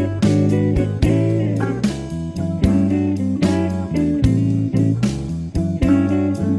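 Background music: a guitar-led instrumental with plucked guitar notes over a bass line, at a steady beat.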